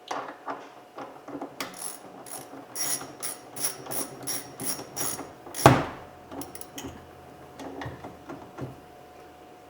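Hand ratchet with a socket or Torx bit turning a door handle fastener, its pawl clicking at about four clicks a second for several seconds. About halfway through comes one loud knock, followed by a few scattered clicks.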